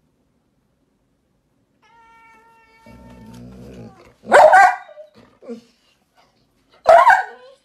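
Two short, loud animal calls, one about four seconds in and another near the end, from a pet cat and dog together. A faint steady tone and a low rumble come just before the first call.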